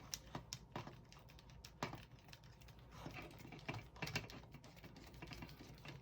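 Faint, irregular small clicks and ticks of an M2x8 screw being turned into a 3D-printed plastic foot with a small hex driver.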